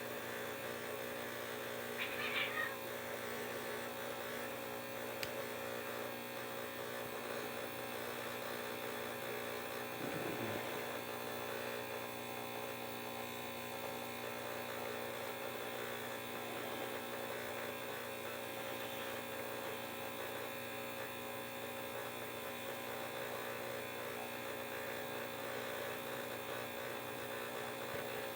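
Steady electrical mains hum, with faint cat meows: a short one about two seconds in and a lower, gliding one around ten seconds in.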